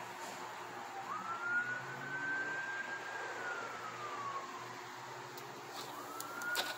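A siren wails, its pitch slowly rising and falling about every five seconds, with a few sharp clicks near the end.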